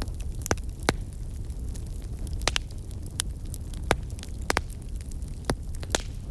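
Wood fire in a fireplace crackling: sharp snaps and pops at irregular intervals, roughly one or two a second, over a steady low rumble of the burning logs.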